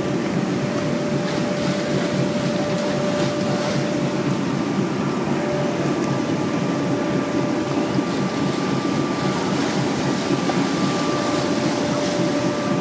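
Steady drone of a running motor, with a constant high whine over a low rumble.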